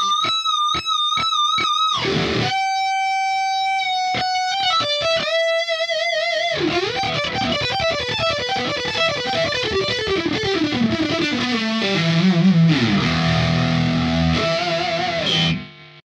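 Swing P-2S electric guitar played through a Line 6 POD HD500 on a high-gain distorted tone: held lead notes with wide vibrato, then fast descending runs. It ends on a held vibrato note that is cut off sharply near the end.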